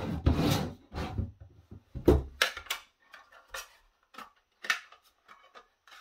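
Hard plastic case of a Dell D6000 USB-C docking station being handled and pulled apart: a run of clicks, knocks and rubbing, loudest in the first second and again about two seconds in, then a few lighter clicks.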